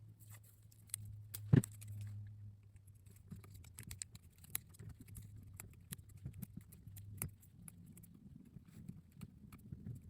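Scattered light clicks and ticks of small parts being handled, with one sharper click about a second and a half in, over a faint low hum.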